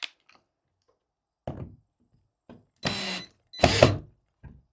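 Drill driving a wood screw into a wooden door in several short bursts, the longest two about half a second each near the end, the last of them the loudest.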